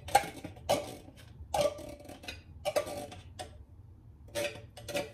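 A metal spoon knocking and scraping inside an open tin can, scooping out canned green peas: about eight sharp, ringing clinks at an uneven pace.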